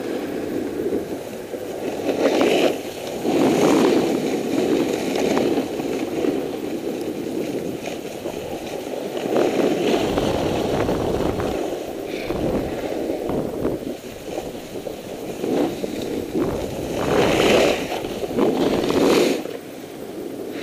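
Snowboard sliding down groomed snow, its edge scraping in a continuous rush that swells several times as the board turns.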